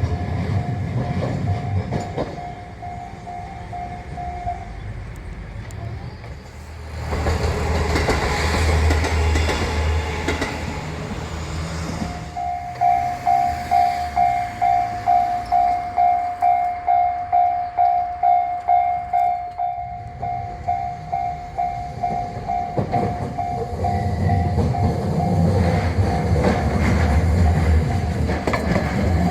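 Level crossing warning bell ringing in quick even strokes, stopping a few seconds in. A train runs past with a loud rumble. The bell starts again about twelve seconds in and keeps ringing at about two strokes a second while a train rumbles up toward the crossing near the end.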